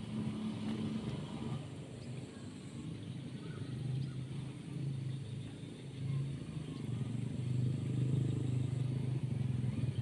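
A small engine droning at a low pitch, its pitch shifting a little and growing louder over the last few seconds, with faint chirps above it.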